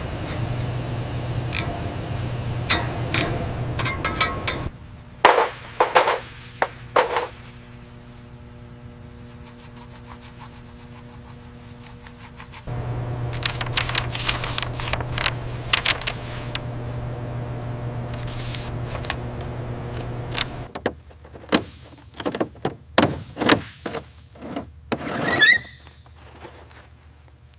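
Workshop handling sounds: scattered clicks, knocks and scrapes of metal parts and tools over a steady low hum. The hum drops out about five seconds in and comes back at around thirteen seconds. Near the end comes a dense run of clanks and scrapes as a panel is handled.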